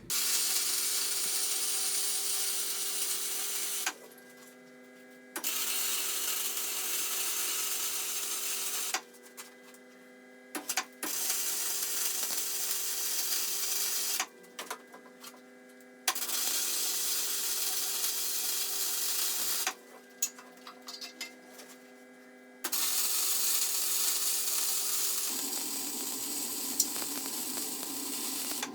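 MIG welder running gasless flux-cored wire: the arc crackles and hisses in runs of about four seconds, with short pauses between them, five runs in all, while a steady hum carries on through the pauses.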